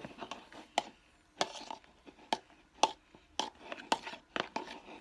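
Spoon stirring a thick slime mixture of toothpaste, hair gel, shaving foam and shampoo in a small bowl, knocking against the bowl about twice a second with soft squishing between the knocks.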